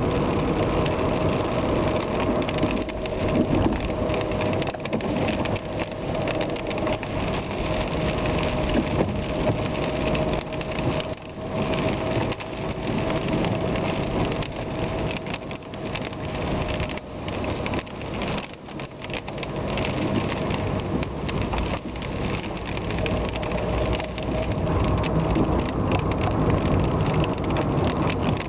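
A vehicle driving on wet roads in the rain: a steady engine note under the hiss of tyres on wet tarmac and falling rain.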